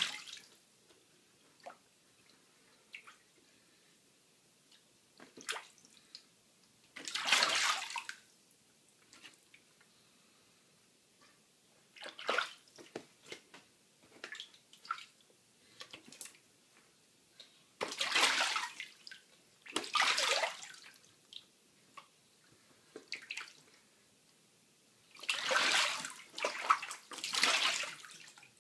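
A goose bathing in a bathtub of water: short bursts of splashing, about eight of them, strongest in a cluster near the end, with small drips and quiet between.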